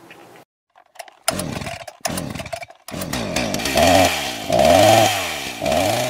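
Chainsaw sound effect: the saw sputters twice, then catches and runs, revving up and down about three times.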